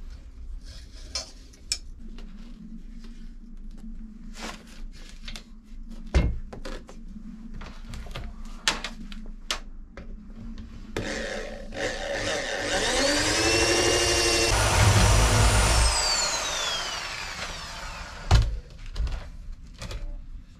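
Scattered knocks and taps of work being handled. About twelve seconds in, a handheld power tool spins up with a rising whine, runs briefly and winds down with a falling whine. A sharp knock follows near the end.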